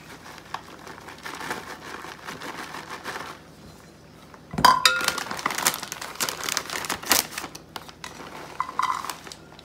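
Plastic bag of shredded mozzarella crinkling as the cheese is shaken out into a plastic measuring cup. About four and a half seconds in, the cup knocks against a glass mixing bowl with a short ringing clink, followed by more rustling and clicking of bag and cheese, and a second smaller clink near the end.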